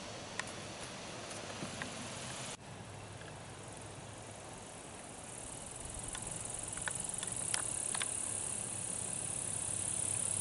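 Outdoor ambience with insects buzzing in a steady high-pitched drone that builds up from about halfway through, with a few faint ticks. The background drops abruptly about two and a half seconds in.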